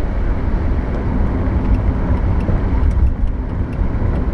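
1974 Plymouth Valiant's slant-six engine and road noise heard from inside the cabin while driving, a steady low rumble. Faint quick ticking joins in about two seconds in.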